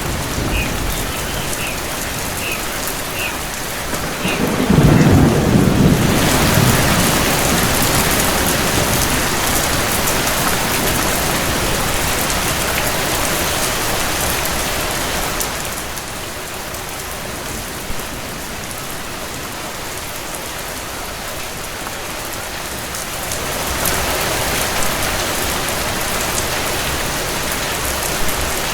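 Steady heavy rain hissing, with a low roll of thunder about five seconds in. The rain eases about sixteen seconds in and swells again later. A quick run of short high chirps sounds in the first few seconds.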